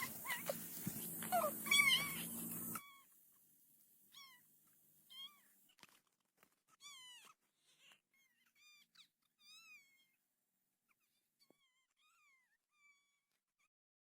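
Short, high animal calls, each rising then falling, repeated about one or two a second and growing fainter. For the first few seconds they sit over a louder background noise that cuts off suddenly.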